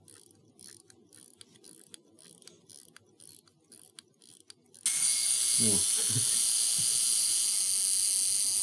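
A Raketa mechanical alarm wristwatch being hand-wound at its crown, a run of small ratchet clicks. About five seconds in, its alarm goes off with a sudden, loud, steady high buzz.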